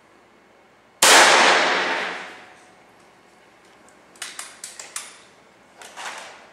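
A single loud air rifle shot about a second in, its report fading over about a second and a half. A quick series of sharp clicks follows around four to five seconds in as the rifle is handled, then a short rattle near the end.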